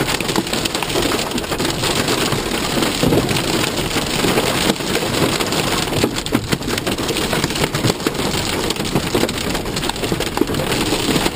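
Heavy rain falling steadily, a dense patter of drops hitting a hard surface.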